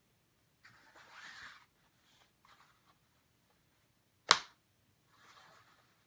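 A fabric laptop sleeve and a laptop being handled: soft rustling and sliding, with one sharp click about four seconds in, the loudest sound.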